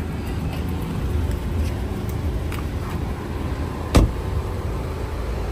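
Steady low road rumble of a car driving, heard from inside the cabin, with one sharp click about four seconds in.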